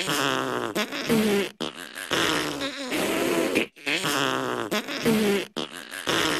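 Several voices blowing raspberries, a buzzing flutter of the lips, in bursts about two seconds long with short breaks between them.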